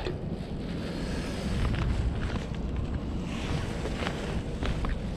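Wind rumbling on the microphone, with a few faint light clicks.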